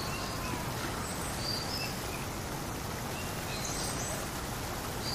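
Steady rushing of a shallow river running over rocks, with birds giving short, high chirps now and then.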